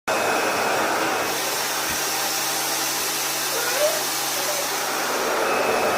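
RevAir reverse-air hair dryer running steadily: an even rush of suction and airflow with a faint low hum, cutting off suddenly at the end.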